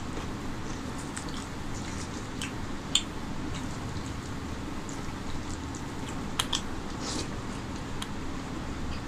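A hand mixing rice and chicken curry on a steel plate, with scattered small clicks. The sharpest click comes about three seconds in and two more a little past six, over a steady low hum.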